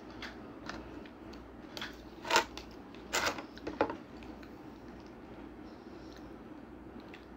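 Clicks and crinkles of a plastic takeaway food container and spoon being handled on a table, a few sharp snaps in the first four seconds, the loudest about two seconds in, then only faint handling over steady room tone.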